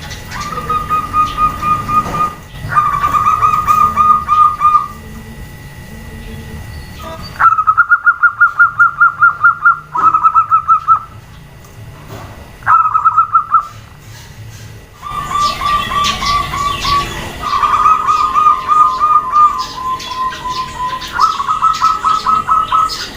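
Zebra doves (perkutut) calling: about eight rapid, stuttering cooing phrases, each a second or two long, with pauses between. In the later part two birds call over each other at slightly different pitches.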